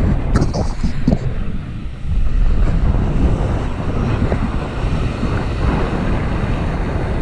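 Strong wind buffeting the microphone, with surf breaking on the beach underneath, and a brief high clatter about half a second in.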